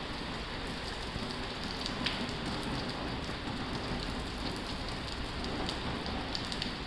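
Heavy rain on a tin roof: a dense, steady hiss of rain with scattered sharper drop hits, one a little louder about two seconds in.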